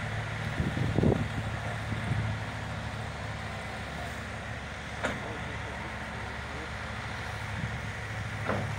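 Steady low drone of a tractor's diesel engine driving a Metal-Fach T659 trailed feed mixer wagon through its PTO while the wagon discharges chopped feed, with a few short clicks or knocks.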